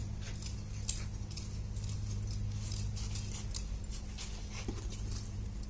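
Glowing charcoal embers in a grill crackling and ticking with many small sharp pops as the coals are poked with a rod, over a steady low hum.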